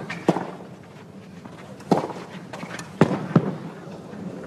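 Tennis ball being struck by rackets and bouncing on a clay court during a rally: about five sharp pocks, two close together near the start, one about two seconds in and a loud pair about three seconds in, over a faint steady crowd background.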